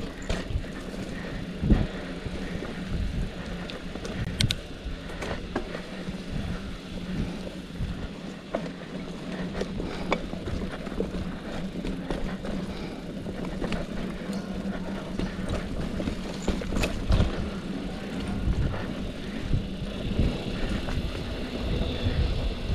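Mountain bike rolling over a dirt trail: a continuous rumble with frequent rattles and knocks, and a steady low hum underneath.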